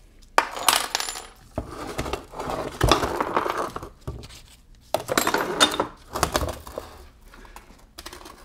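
Steel gear and shaft clinking and scraping against the aluminium case of a T5 five-speed manual transmission as they are worked loose by hand. The metallic clatter comes in several irregular bursts.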